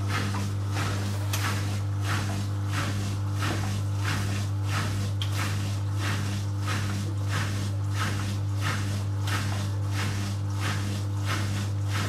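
Zanussi FL 1234/A front-loading washing machine in its wash phase, the drum turning and swishing the laundry through water about three times a second over a steady low hum.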